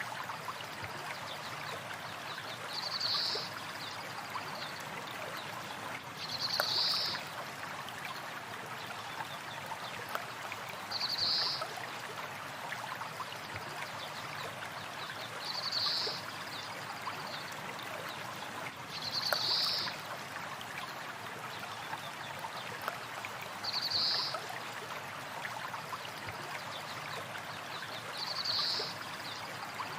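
A flowing stream of water running steadily, with a short high bird call repeating about every four to five seconds, seven times in all.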